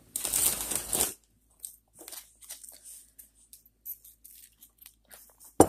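Tortilla chips crunching loudly for about a second, then quieter chewing with small scattered crackles and clicks. A sharp knock comes near the end.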